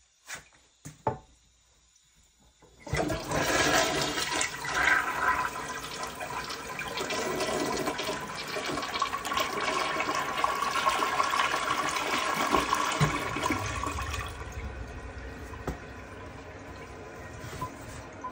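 1991 Kohler Wellworth toilet flushing: a few short knocks, then about three seconds in a loud rush of water through the bowl that eases to a quieter steady rush about fourteen seconds in.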